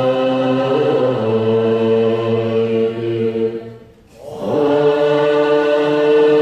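Large assembly of Tibetan Buddhist monks and nuns chanting prayers in unison on long held notes, breaking off briefly about four seconds in and then resuming.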